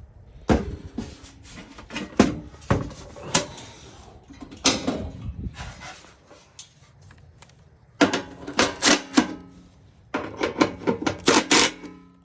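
Irregular clicks, knocks and light metallic clatter of hand tools and parts being handled during work on a furnace blower motor, busiest about two seconds in and again over the last few seconds.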